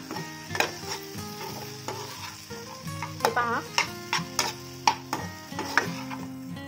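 Fried okra and masala sizzling in an oiled kadhai while a spatula stirs them, with repeated short scrapes and knocks of the spatula against the pan and one longer scraping sweep a little past three seconds in.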